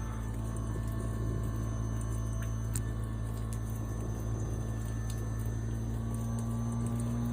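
Daikin ductless heat pump running through its defrost cycle: a steady low hum with a watery hiss over it. Near the end, one tone in the hum starts to rise slightly in pitch.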